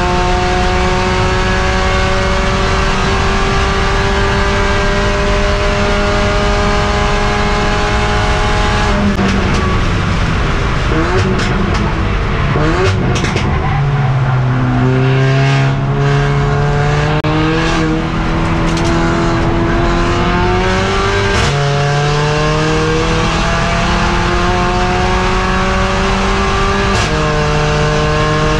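Onboard sound of a Mercedes-AMG CLA45 race car's turbocharged four-cylinder engine at full throttle, its pitch climbing slowly in a high gear. About nine seconds in it brakes and downshifts with several quick throttle blips, then accelerates hard again, shifting up four times.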